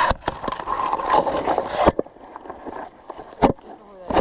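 Rustling and crunching of dry leaves and twigs underfoot on a forest floor. A dense run of crackling for about two seconds, then scattered single snaps and steps.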